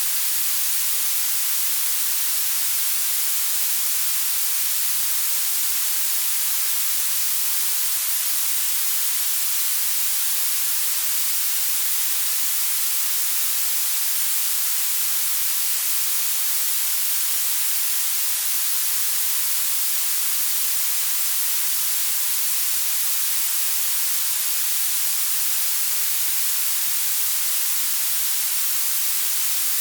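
Steady blue noise: an even, unchanging hiss with its weight in the highest treble and almost nothing in the bass.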